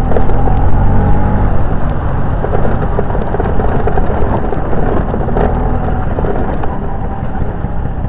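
Bajaj Chetak scooter's two-stroke single-cylinder engine running steadily while under way, its engine freshly rebuilt and running smoothly, with road noise and a few sharp clicks.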